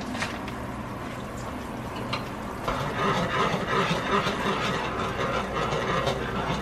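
Dark braising sauce sizzling and bubbling in a nonstick pan while a spoon stirs it. It gets louder and busier about two and a half seconds in, as the stirring begins.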